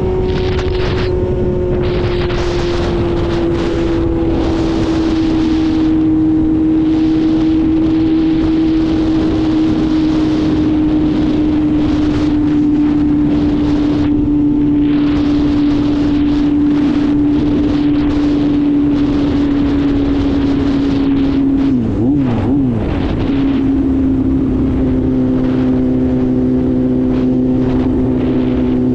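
Kawasaki Z800's inline-four engine running as the bike is ridden, a steady tone whose pitch sinks slowly; about three-quarters of the way through it wavers briefly, then holds steady at a lower pitch.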